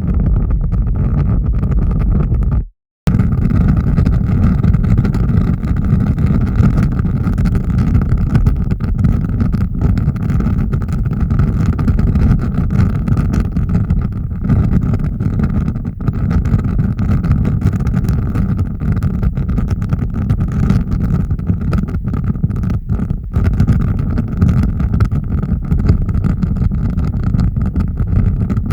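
Large fire burning with a steady low roar and scattered crackles. The sound cuts out completely for a moment about three seconds in, then goes on the same way.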